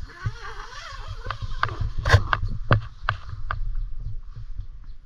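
Nylon tent door being unzipped and pulled open: rustling fabric and zipper with a run of sharp clicks, the loudest a little past two seconds in.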